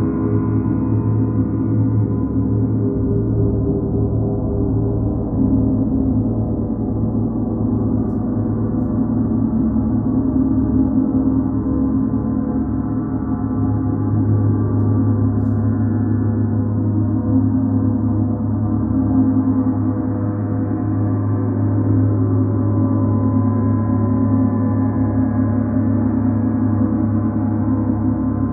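Several large hanging gongs rubbed and struck softly with a felt mallet, their tones overlapping into a dense, steady, sustained drone with no sharp strikes. A deep low tone swells about halfway through.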